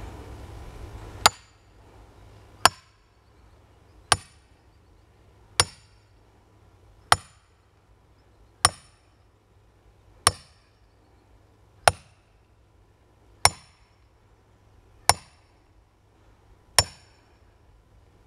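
Long-handled hammer striking a steel wedge driven into a log: about a dozen sharp metallic clanks, evenly spaced about a second and a half apart, each with a brief ring. The wood is stubborn and the wedge sinks in without splitting the log.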